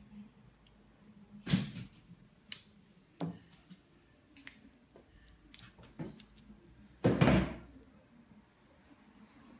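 Handling knocks and clunks from wires and the metal rig being moved by hand: a few scattered sudden knocks, with the loudest and longest clatter about seven seconds in. The motor is not running.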